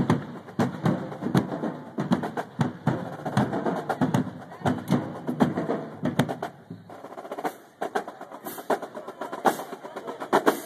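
Marching band drumline playing a marching cadence: rapid, sharp drum and stick strikes in a driving rhythm, thinning briefly about seven seconds in before picking up again.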